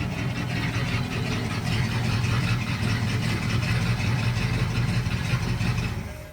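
A vehicle engine running steadily with a deep hum, cutting off suddenly near the end.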